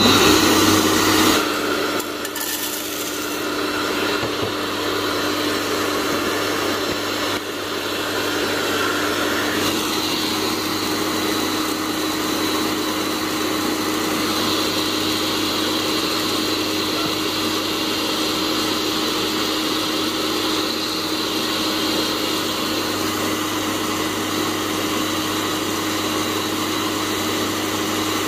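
Cafemasy electric hot-air coffee roaster running steadily with a constant hum, its fan blowing and green coffee beans rattling as they tumble in the glass roasting chamber. It starts loudest in the first second or so.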